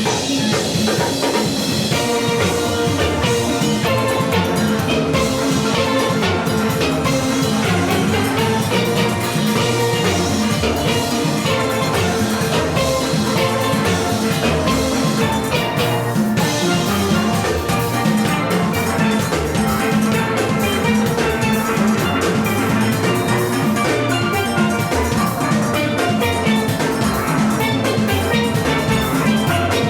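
Steel orchestra playing live: a full steelpan band with many pans carrying the melody and harmony over drum-kit and percussion rhythm.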